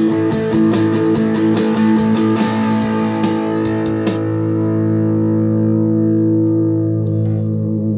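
Guitar music: rhythmic strummed chords until about halfway, then a held chord ringing out.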